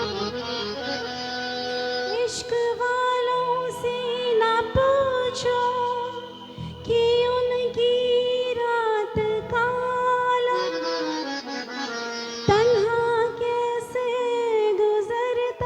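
Instrumental introduction of a Hindi film song played live: a sustained, ornamented lead melody with pitch bends over accompaniment, with a few sharp percussion strokes.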